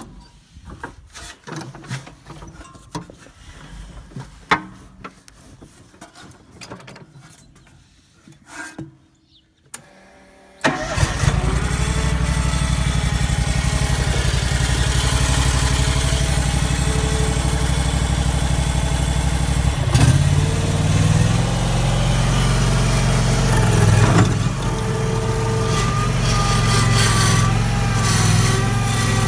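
Scattered light knocks and clicks. About ten seconds in, the skid steer's 26 hp Kawasaki liquid-cooled, fuel-injected V-twin starts abruptly and then runs steadily, its note shifting a couple of times as the machine is worked.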